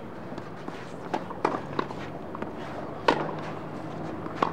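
Tennis ball being hit in a practice rally: a few sharp pocks of ball on racket and court, the loudest about three seconds in, over a low steady hum.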